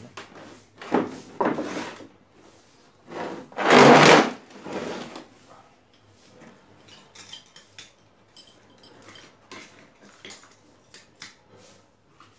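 A CRT television's plastic cabinet being handled and turned around on a wooden surface: a few knocks in the first two seconds, a loud scrape lasting about a second near four seconds in, then scattered light clicks and taps.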